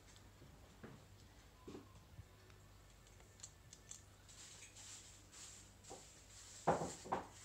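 Small metal and plastic camera lens parts clicking and tapping as they are handled and fitted together, scattered light clicks with two louder knocks close together near the end.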